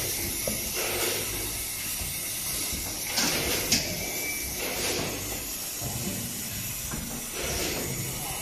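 Automatic bottle filling and capping machine running: steady mechanical noise with short bursts of air hiss, the loudest a little after three seconds in, ending in a sharp click.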